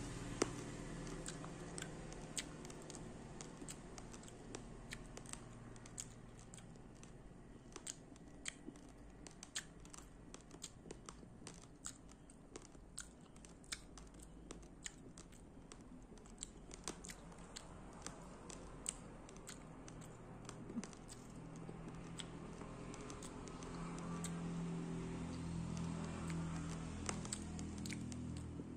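Raw rice grains being chewed, cracking in sharp, irregular crunches a few times a second. A low hum grows in over the last several seconds.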